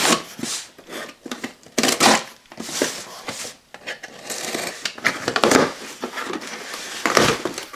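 A cardboard shipping box being opened and unpacked: irregular rustling and crinkling of packaging, with scrapes and a few knocks.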